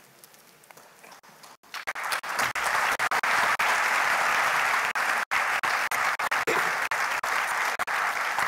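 Audience applauding: after a quiet start, the clapping comes in about two seconds in and stays steady.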